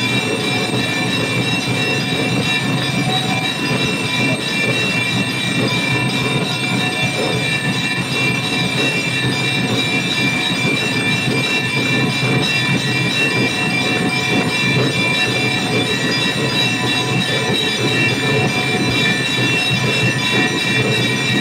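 Brass temple bells rung continuously for the aarti: a dense, unbroken metallic clanging with several steady ringing tones held over it.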